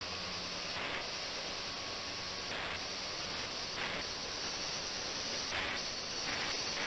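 Ultrasonic water tank in operation: a steady hiss from the water agitated by the ultrasonic transducers, swelling slightly now and then.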